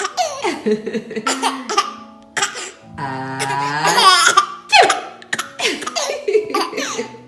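Baby laughing hard in repeated short bursts, with one longer laugh rising in pitch about three seconds in.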